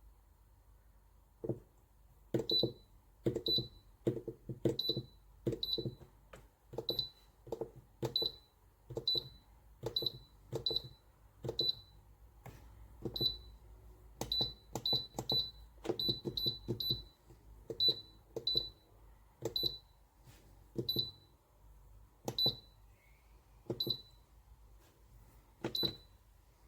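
Electronic keypad buttons being pressed over and over, each press a click with a short high beep, about one a second and sometimes two in quick succession.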